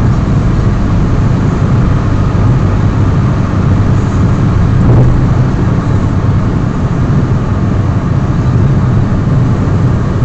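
Car driving at speed, heard from inside the cabin: a steady, loud low rumble of engine and tyre noise, swelling slightly about halfway through.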